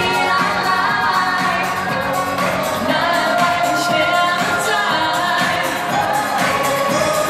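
Live pop song: a woman singing into a microphone over steady backing music, amplified through the hall's PA.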